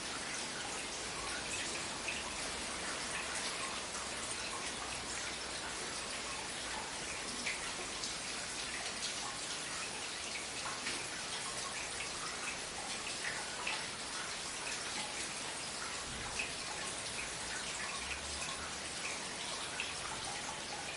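Steady rain with many separate drops ticking and dripping close by over an even hiss, and a faint low rumble that comes and goes underneath.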